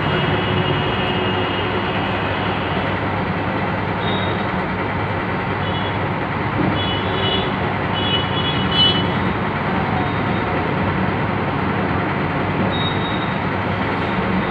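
Steady rushing background noise, with a few short high-pitched tones between about four and nine seconds in.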